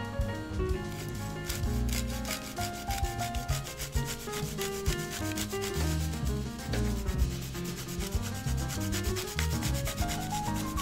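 Mandarin orange peel being grated on a small stainless-steel hand grater, with quick repeated rasping strokes of the zest against the teeth, starting about two seconds in.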